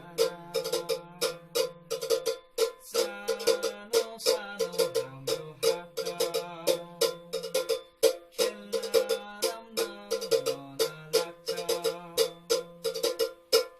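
Plucked string instrument playing a fast tune of quickly repeated notes over a bass line that steps up and down, with two brief breaks in the phrasing.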